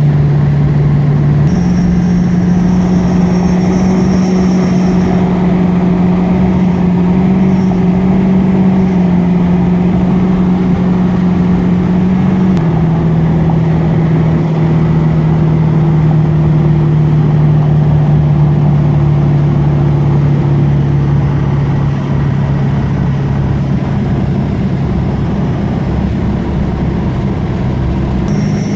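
Vehicle running steadily with a whine. A strong low drone steps up in pitch about a second and a half in and drops back down about halfway through, while a faint, thin high whine slowly falls in pitch.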